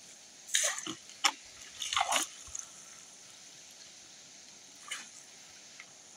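Splashing in shallow river water as a long-handled landing net is dipped and swept through it: a few short splashes in the first two seconds and another near five seconds, over a steady faint hiss.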